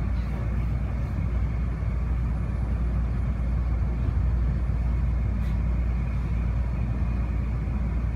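Cabin noise inside the Incheon Airport maglev train running along its elevated guideway: a steady low rumble with an even hiss over it, unbroken by any regular clicks or knocks.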